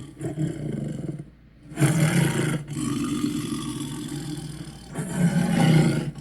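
Spinosaurus roar sound effects: deep, rough roars. A quieter growl comes first, then after a short pause a loud roar starts about two seconds in, and another swells near the end.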